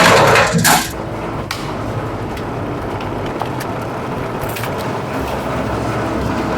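Scrap wire stripping machine working on a thick 90 mm three-core cable: loud for about the first second as it cuts through the insulation, then running steadily with a few faint cracks.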